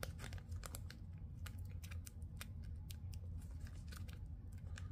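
Faint, irregular clicking and plastic rustling as a thick jersey-patch trading card is pushed at a soft plastic penny sleeve; the card is too thick to go in.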